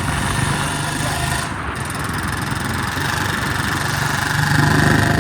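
Royal Enfield Bullet 350's single-cylinder engine idling through a C-bend exhaust pipe, a steady low pulsing thump that swells slightly about four and a half seconds in.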